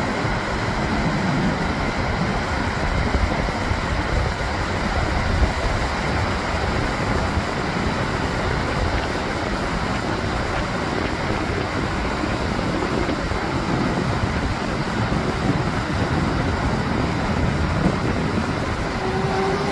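Steady rush of rough sea surf breaking on the shore, with wind rumbling on the microphone.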